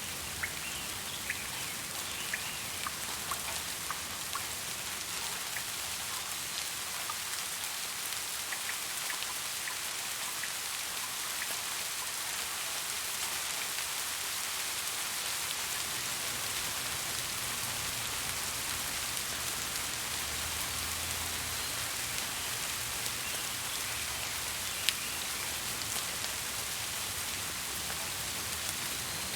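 Steady rain falling, an even hiss with individual drops ticking on surfaces; one drop lands sharper and louder near the end.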